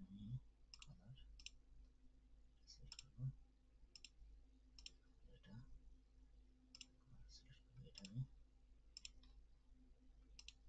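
Faint computer mouse clicks, irregular, one or two a second, over a steady low hum.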